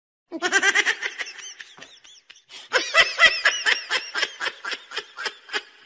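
A person laughing in quick, high-pitched bursts, louder again from about three seconds in.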